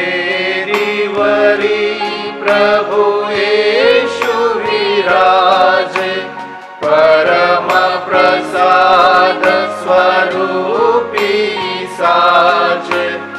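A church hymn sung to instrumental accompaniment: a singing voice carries the melody over a steady bass line that moves in slow steps.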